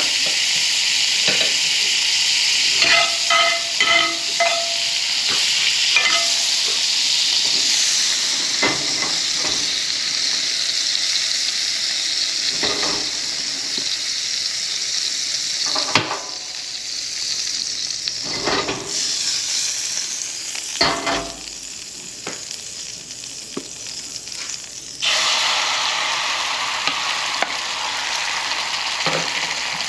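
Eggs frying in a cast-iron skillet on a propane camp stove, sizzling hard because the pan is a little too hot for the egg, with spatula scrapes and a few metal clinks. About halfway through the sizzle drops off, and it jumps back up suddenly near the end.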